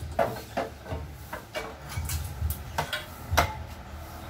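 Metal hand tools and engine parts clinking and knocking against each other, about seven irregular knocks, some with a short ring, the loudest about three and a half seconds in.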